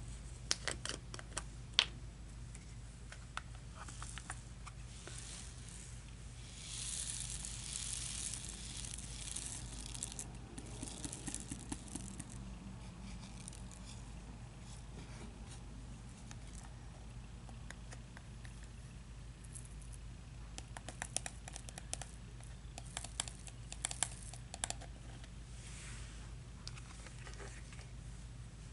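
Diamond painting drills (small resin beads) being put away: small plastic clicks and rattles with plastic crinkling, including a longer stretch of crinkling about a quarter of the way in.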